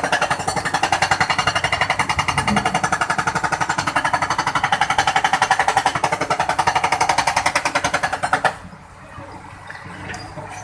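Excavator at work with rapid, even hammering strokes, about a dozen a second, that stop suddenly about eight and a half seconds in.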